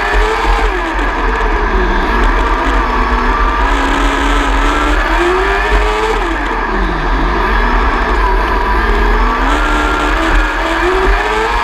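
Onboard sound of a 600cc micro sprint car's motorcycle engine at racing speed on a dirt oval, over a constant low rumble: the engine note climbs for several seconds down each straight and drops sharply into each turn, once shortly after the start and again about six seconds in, then climbs again.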